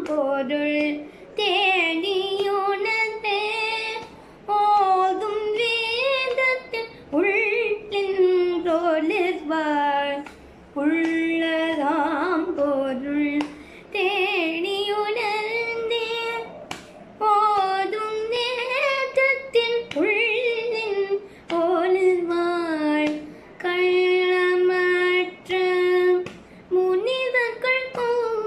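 A young girl singing solo in Carnatic style, in phrases a second or two long whose pitch slides and wavers, with short breaks for breath. No accompaniment is heard under the voice.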